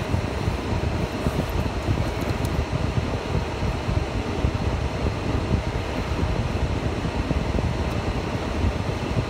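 Steady rumble and rush of a car's interior while it drives slowly, heaviest in the low end, with no change in pace or pitch.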